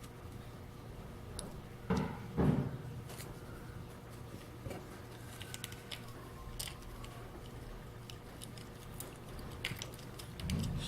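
Small plastic alarm parts being handled: light clicks, with two dull knocks about two seconds in, over a faint steady low hum.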